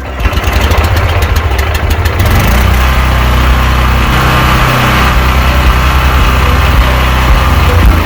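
Honda GX390 single-cylinder petrol engine on a pressure washer pull-started and catching at once. It fires unevenly for about two seconds, then settles into steady, fast running at full throttle.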